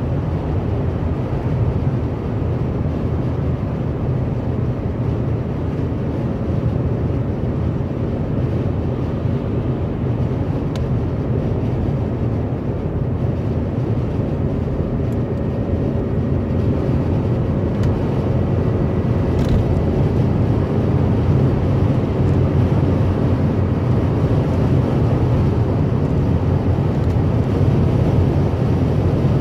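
A car driving at motorway speed, heard from inside the cabin: a steady, low rumble of tyre, road and engine noise that gets slightly louder in the last third.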